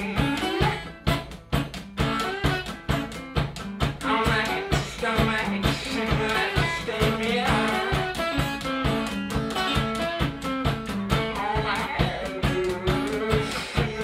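One-man-band blues: a strummed guitar over a steady drum beat, with a man singing in places. The music drops briefly about a second in, then picks up again.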